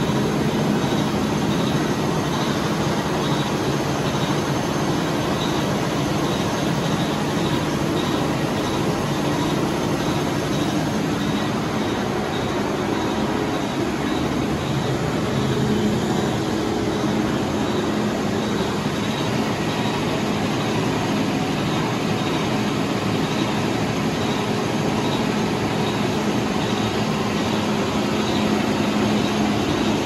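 Industrial water chiller running on test: a steady, loud mechanical drone with a constant low hum that does not change.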